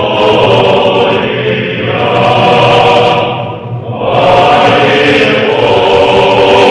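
A choir chanting in long held notes, with a brief breath-like break about three and a half seconds in.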